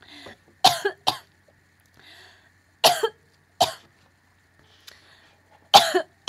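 A young woman in a coughing fit: about six sharp coughs, mostly in pairs, with short pauses between them.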